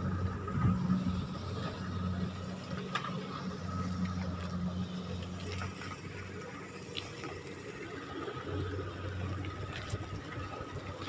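Two-wheeled hand carts loaded with sacks rolling over a wet, muddy road, with scattered small clicks and creaks from the carts, over a low steady hum.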